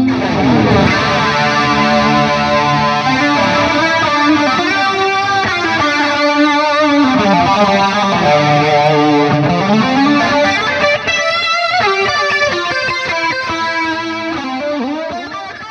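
Electric guitar played through overdrive and effects pedals: a melodic lead line with string bends and gliding notes that dies away near the end.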